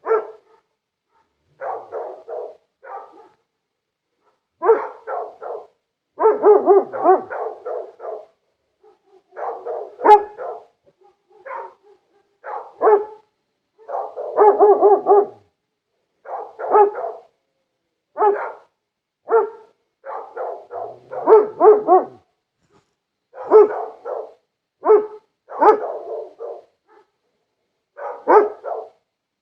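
Dogs barking in repeated volleys of short barks, with brief silences between the bursts.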